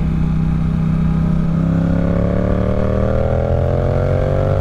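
Yamaha R7's parallel-twin engine under way, holding a steady note and then revving up steadily from about a second and a half in as the bike accelerates. Wind rush and road rumble sit beneath it.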